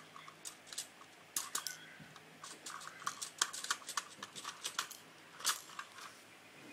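Light plastic clicks and taps at an irregular pace, from Lego bricks and figures being handled and knocked together, thickest in the middle of the stretch.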